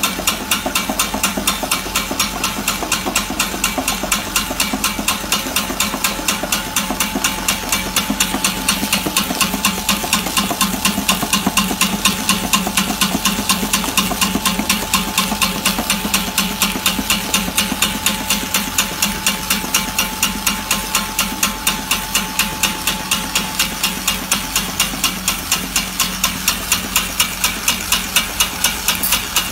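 Small puffed-snack extruder running steadily: an even motor hum, a rapid regular ticking at about four a second, and steam hissing as the puffed corn snacks are pushed out of the die.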